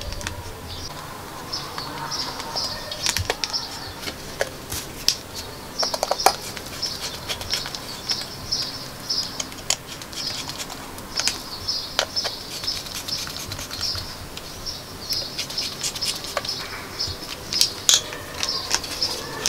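Small, irregular clicks and taps of a precision screwdriver turning small screws in a wooden box as it is handled, over a high twittering chirp that comes and goes.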